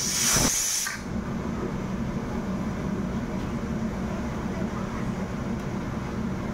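A steady low mechanical hum with a constant drone, after a brief hiss that fades out about a second in.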